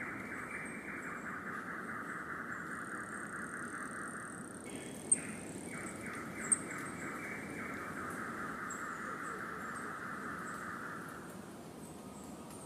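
An insect's rapid, pulsing trill, breaking off briefly a little before halfway and fading out near the end. A thin high-pitched whine sits above it for a few seconds, and there are two faint clicks in the middle.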